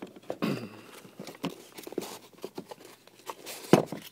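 Cardboard insert rustling and crinkling as it is pulled out of a new adidas adiPure IV soccer cleat, with scattered taps and scrapes of handling the shoe and one sharp knock near the end.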